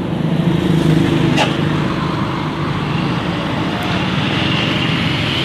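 Steady engine and road noise of a bus driving past on the road, with a brief click about a second and a half in.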